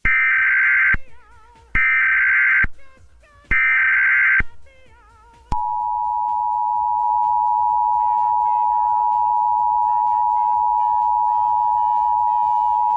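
Emergency Alert System broadcast interruption: three short bursts of the harsh, buzzing SAME digital header, then, about five and a half seconds in, the steady two-tone EAS attention signal.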